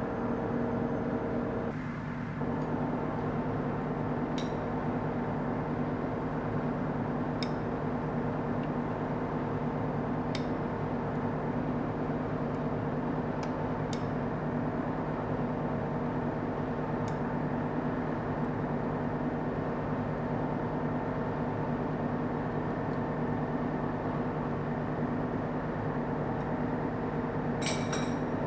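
Steady hum of a running machine or electric motor at an even level, with a few light clicks.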